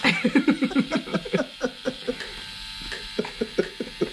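Rotary tattoo machine buzzing as it inks the skin of a hand, with a person laughing over it in quick bursts in the first second and a half and again near the end.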